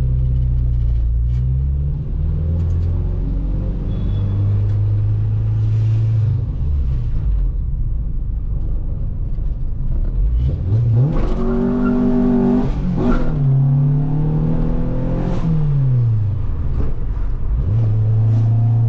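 Honda Civic's B20 VTEC four-cylinder engine under way, running steadily, then about ten seconds in the revs climb hard, dip for a gear change, climb again and fall back to a steady cruise.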